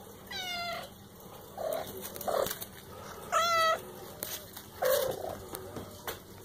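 Four-week-old kitten mewing: two high, clear meows about three seconds apart, with shorter, lower mews between and after them.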